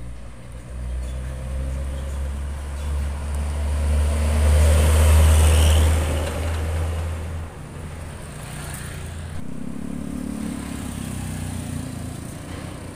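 Diesel container truck passing close by: its engine rumble and tyre noise build to the loudest point about five seconds in, then fall away. Another truck's engine runs more quietly after that.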